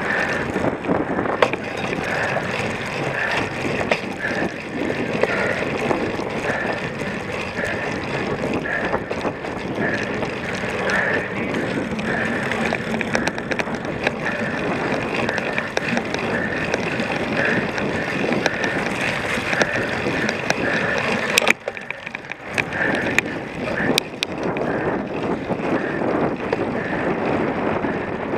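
A cyclocross bike being ridden over a rough course, its tyres rumbling and the frame rattling, with sharp knocks from bumps and steady wind noise on the microphone. The noise drops away briefly a little after twenty seconds, then picks up again.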